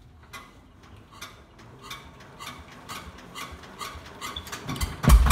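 Regular mechanical clicking, about two clicks a second and growing louder, as the Quick Truck's diesel engine is cranked by hand. A low rumble comes in near the end.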